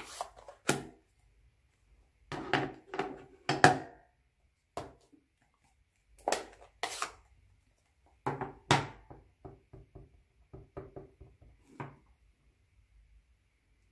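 Plastic clicks and knocks of Stampin' Up! ink pad cases and a clear acrylic stamp block being handled and opened, then a run of lighter, quicker taps, about three a second, as the daisy stamp is dabbed on the ink pad.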